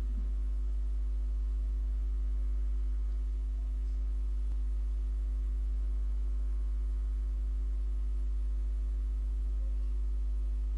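Steady low electrical hum with a few faint constant higher tones over it, unchanging throughout.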